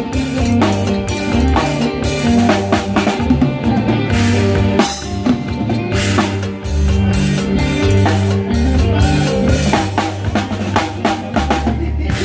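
Drum kit playing a busy driving beat in lively Isan phin-style band music, with kick, snare and rim hits over a sustained low bass line.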